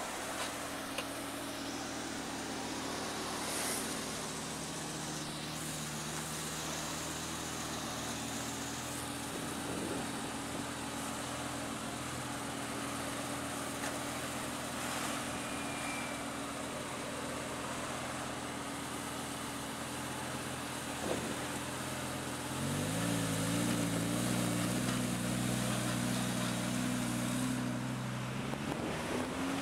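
Lamborghini Gallardo V10 idling steadily. About 22 seconds in, a louder, lower engine sound with a wavering pitch comes in for several seconds, ending with a short rise in pitch near the end.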